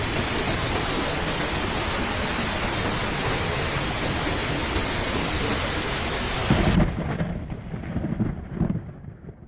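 Heavy rain pouring down, a dense steady hiss. About seven seconds in it breaks off abruptly into a quieter, low uneven rumbling with a few thumps.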